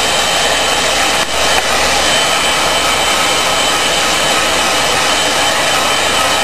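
Electric heat gun running steadily, an even rush of blown air with a faint high whine, heating PVC pipe to soften it for shaping.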